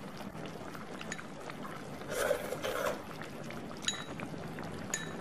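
Pot of duck and bamboo-shoot broth simmering on the stove, a steady soft bubbling and crackling with a couple of swells, then two light ringing clinks near the end.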